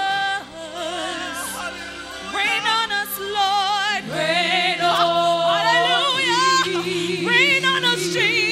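Gospel vocal group singing live into microphones: several voices in harmony, holding long notes with wavering vibrato and sliding between pitches.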